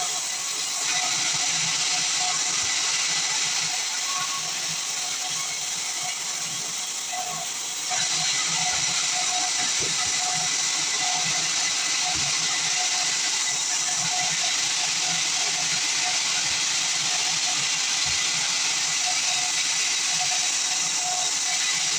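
Band sawmill cutting a pine log: a steady hissing saw noise that gets louder about eight seconds in.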